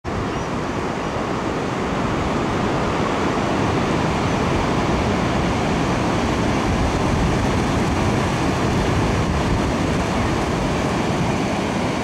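Ocean surf breaking, a steady noise without let-up, with wind buffeting the microphone.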